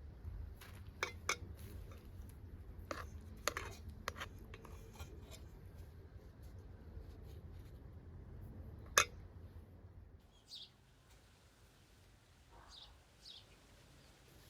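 Scattered sharp clicks and light handling noises over a low steady hum, the loudest a single click about nine seconds in; after that it goes quieter, with a few faint bird chirps near the end.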